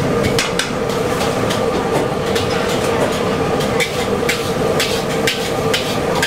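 Metal spatula clacking and scraping against a steel wok, irregularly about twice a second, as eggs are stirred in hot oil. Underneath is a steady rush of the gas burner and frying oil.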